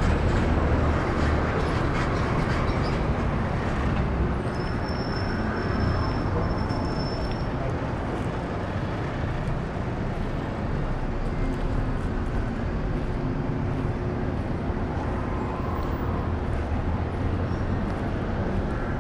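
Road traffic on a city street: cars and taxis passing in a steady low rumble. A brief high-pitched whine sounds for a few seconds about five seconds in.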